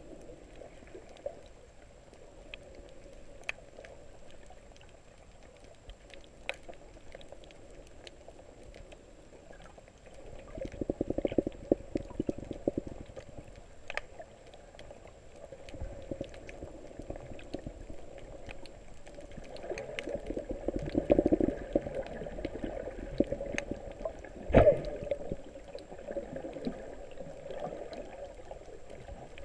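Muffled underwater water movement heard through a camera held below the surface: a low rush that swells twice, with scattered faint clicks, and a single sharp knock about two thirds of the way through.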